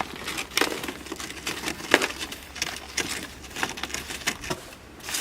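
A snow shovel scraping and chipping at ice-crusted snow, a run of irregular crunches and scrapes with one sharper crack about two seconds in.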